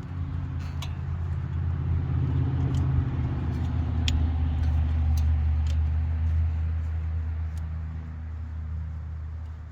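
A low, steady engine-like hum that swells over a few seconds and then eases off, with scattered light metallic clicks from a wrench and the serpentine belt being worked onto the engine's pulleys.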